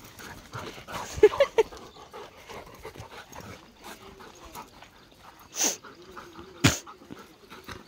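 Two dogs play-fighting, with panting and scuffling. About a second in there are short growls and whines, and near the end two loud, sharp barks.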